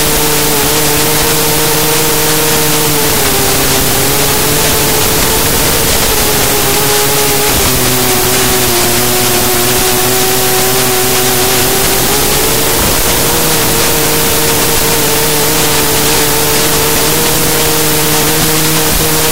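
Race quadcopter's brushless motors and propellers whining under a steady loud rushing hiss, the pitch sinking and rising with the throttle: it drops a few seconds in, drops again about eight seconds in, then climbs back up past the middle.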